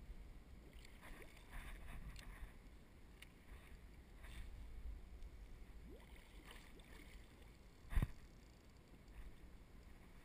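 Water lapping and splashing lightly against a fishing kayak's hull, with faint scattered pops over a low rumble. One sharp knock about eight seconds in.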